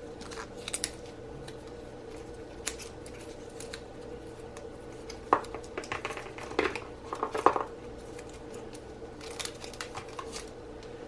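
Light clicks, taps and rustles of packaging and a charger being handled, bunched in the middle and again near the end, over a faint steady hum.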